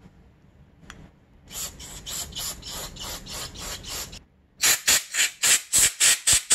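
Repeated rasping, scraping strokes from hard parts rubbing together as a carburetor's throttle slide and body are handled. A run of strokes at about three a second is followed, after a brief pause, by a louder, faster run of about ten strokes.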